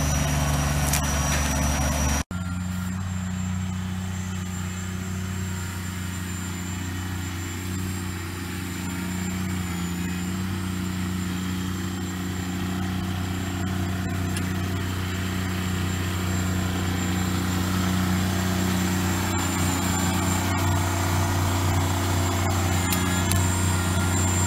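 Kubota BX25D compact tractor's three-cylinder diesel engine running steadily while it works a front-loader grapple. The sound breaks off for an instant about two seconds in and then carries on at a slightly different pitch.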